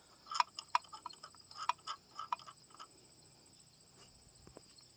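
About seven sharp, light clicks in the first two and a half seconds, over a steady high chirping of crickets.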